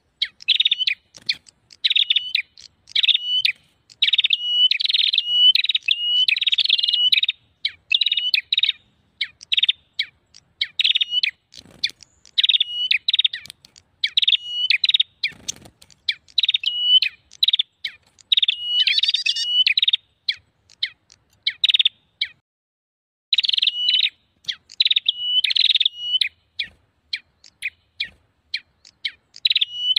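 Prenjak (tailorbird) lure-call recording: loud, rapid runs of sharp repeated chirping notes in a noisy chatter, with a short break about two thirds of the way through. It is a trapping lure meant to draw wild prenjak in.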